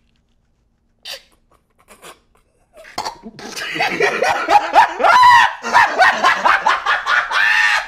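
A man laughing loudly and at length, in quick pulses with the pitch rising and falling. It starts about three seconds in, after near silence broken by two short faint sounds.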